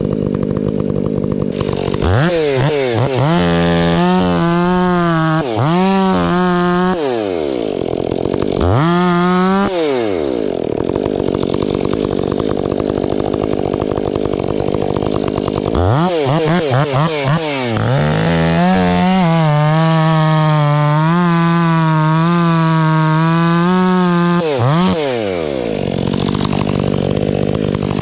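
Husqvarna 500i two-stroke chainsaw cutting ponderosa pine. It revs up about two seconds in and holds near full throttle, its pitch dipping and recovering as the chain bites into the wood, then drops back after about ten seconds. It revs up again for a second long cut and falls back to a lower speed near the end.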